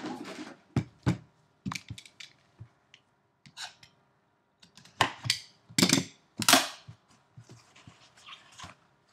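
Cardboard trading-card boxes being handled on a tabletop: short knocks as a box is set down, and brushing, sliding rubs of cardboard as the box is pushed over and its lid lifted off, loudest a little past halfway.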